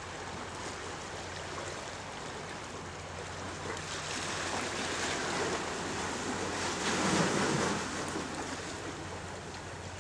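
Sea waves washing against the rocks of a jetty, swelling to a louder wash about seven seconds in, over a steady low hum.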